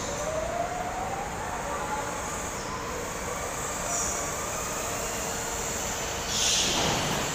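Go-kart engine running at speed under steady wind noise, its pitch rising slowly over the first few seconds as the kart accelerates. A brief louder rush of noise comes near the end.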